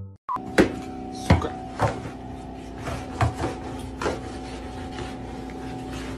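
A rod poked under a refrigerator, knocking sharply against it and the floor about half a dozen times in the first four seconds. Under the knocks runs a steady electrical hum.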